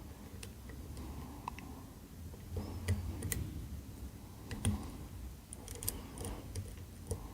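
Small, irregular metallic clicks and ticks of a flag pick and tensioner working the pins of an ABUS EC550 dimple cylinder lock, with a few sharper clicks among fainter ones.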